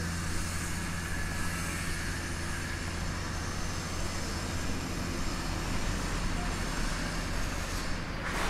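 Steady low engine hum of a motor vehicle, with a wash of street noise.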